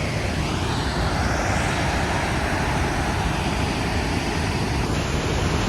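Steady rushing roar of Kakabeka Falls, a big waterfall, as one even wall of noise.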